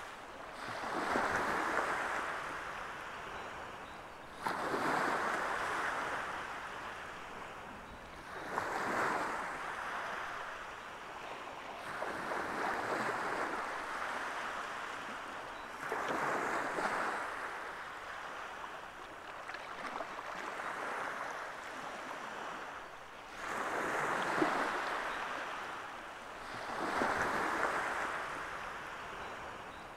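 Small waves washing onto a sandy shore, one swell of surf every three to four seconds that rises quickly and then fades.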